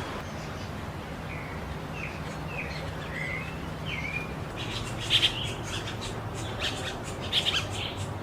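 Birds calling: a run of about six short, slurred whistled notes, then sharper chip notes, with two louder bursts about halfway through and near the end.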